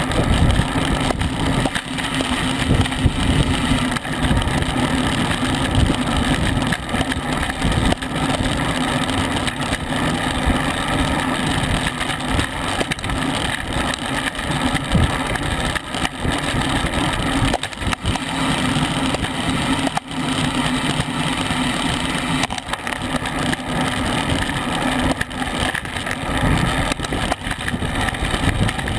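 Steady wind rushing over the microphone of a camera mounted on a racing bicycle riding at about 21 to 25 mph, mixed with tyre noise from the concrete road.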